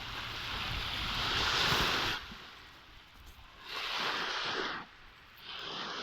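Sea waves washing onto the shore in three swells of hiss: a long one, then two shorter ones about four and five and a half seconds in, each falling away quickly.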